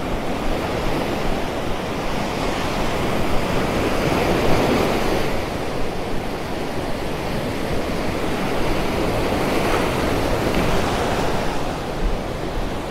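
Ocean surf breaking and washing up the beach, swelling louder about four seconds in and again around ten seconds.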